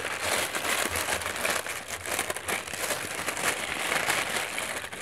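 Purple tissue paper crinkling and rustling steadily as a small wrapped gift is opened by hand.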